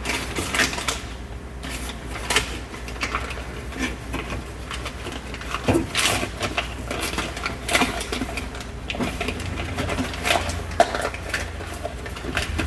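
Irregular clicks, taps and knocks of hands and parts being worked inside a car door, over a steady low hum.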